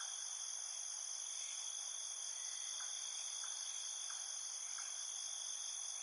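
Steady, high-pitched chorus of insects trilling in the surrounding vegetation, several continuous tones layered together without a break.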